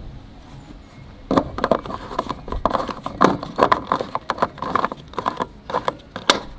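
Petrol filler cap of a 1988 Rolls-Royce Silver Spirit being fitted back into the filler neck by hand: a run of irregular clicks and knocks, starting about a second in.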